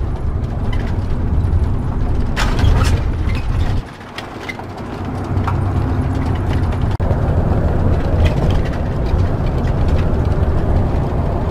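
Motorhome driving along a highway, heard from inside the cab: a steady low rumble of engine and road noise, with a few rattles a couple of seconds in and a short dip in level about four seconds in.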